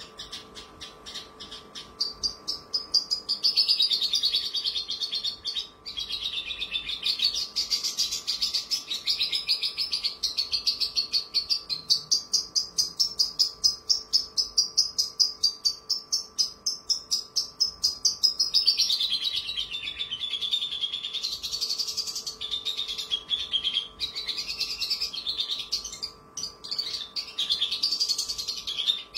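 Caged Javan bush lark (branjangan) singing a long, unbroken song of fast, trilled notes that rise and fall in pitch, growing louder about two seconds in.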